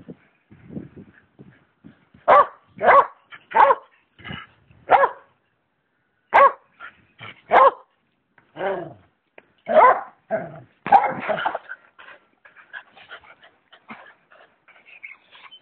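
Small dog barking in a run of about a dozen short, sharp barks, spaced about half a second to a second apart, demanding that its ball be thrown. The barks come between about two and twelve seconds in, and only faint sounds follow.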